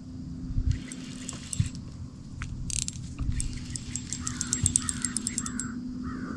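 A fishing reel clicking while a hooked channel catfish is brought in: scattered sharp metallic clicks, then a quick run of rapid ticks about four seconds in. A steady low hum runs underneath.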